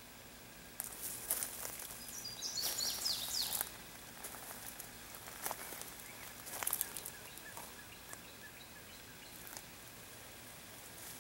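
Outdoor ambience with a bird giving a quick series of short falling chirps about two seconds in. Rustling noises and a few clicks come and go around it over a faint steady high hum.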